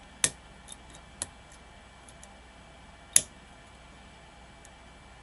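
Sharp metallic clicks of a lock pick and tension wrench working the pins of a pin-tumbler challenge lock: two loud clicks, about a quarter second in and about three seconds in, with a few fainter ticks between.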